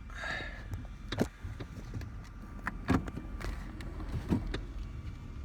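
Car driving, heard from inside the cabin: a steady low rumble of road and engine noise, with three sharp knocks and a few lighter clicks.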